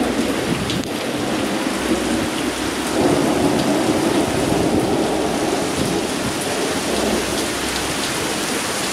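Steady soaking rain pouring down in a dense, even hiss.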